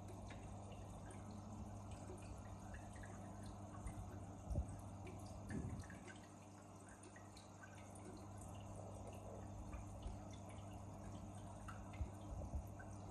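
Aquarium water dripping and trickling in small scattered ticks over a steady low hum from the tank's pump, with a couple of louder knocks near the middle.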